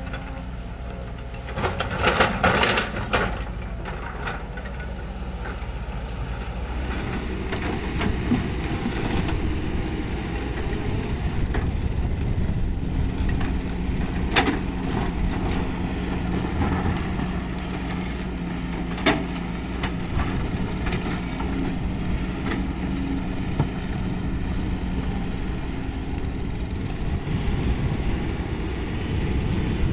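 Kobelco SK200 hydraulic excavator's diesel engine running under work, with a burst of metal clanks about two seconds in and two sharp knocks later on. A steady hum joins the engine sound midway and fades out near the end.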